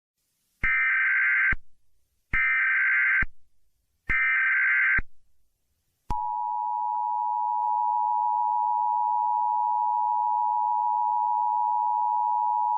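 Emergency Alert System SAME header: three bursts of warbling digital data tones, each about a second long. About six seconds in, the steady two-tone EAS attention signal starts and holds.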